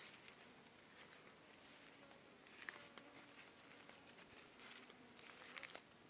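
Faint footsteps and rustling of someone walking through low vegetation, with scattered small clicks over a quiet outdoor background.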